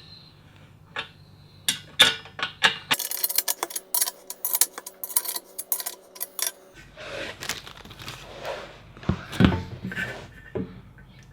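Irregular metallic clicks, clinks and rattles as a hand tool turns bolts into a metal table frame, coming in a dense rapid run for a few seconds partway through.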